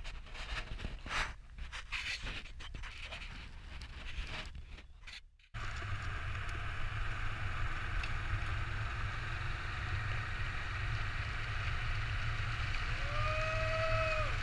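Irregular rustling and scraping handling noise for the first five seconds or so, then a sudden change to the steady engine rumble and road noise of a car driving. Near the end a person shouts a long rising "wuuu".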